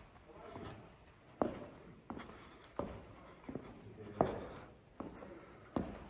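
Footsteps of a person walking, one step about every three-quarters of a second.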